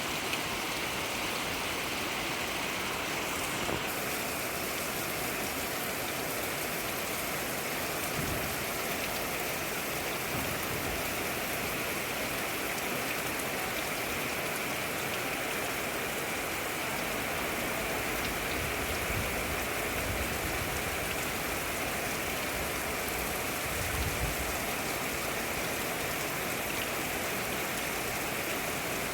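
Steady rain falling, an even hiss without a break, with a few soft low thuds here and there.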